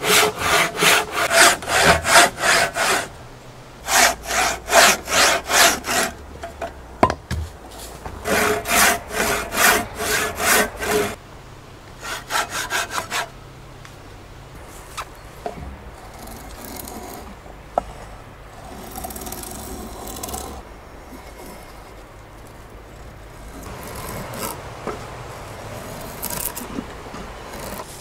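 Japanese handsaw cutting into a thick wooden beam by hand, in quick even strokes of about three a second. It comes in several runs with short pauses during the first half, then stops, leaving only faint scattered handling sounds.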